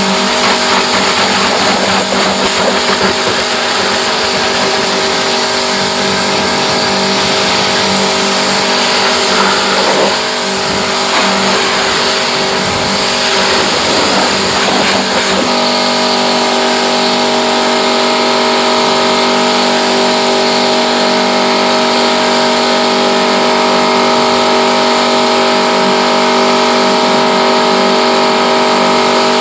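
Pressure washer running steadily: a constant motor hum with water spray hiss over it. The tone of the motor shifts about halfway through.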